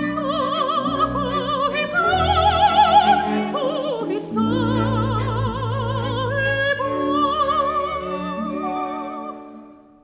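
Soprano singing with a symphony orchestra: long high notes with wide vibrato over sustained orchestral chords, the music fading away in the last second.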